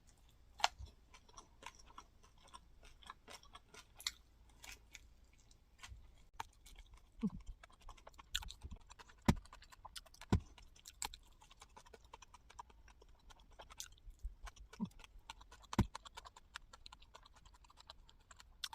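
Close-up chewing and crunching of crispy fried rice cake, a steady run of irregular crackling bites and crunches.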